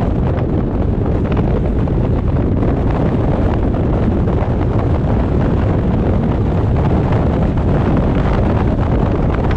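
Steady low wind rumble buffeting an action camera's microphone mounted on the bonnet of a moving car, with the car's driving and road noise underneath.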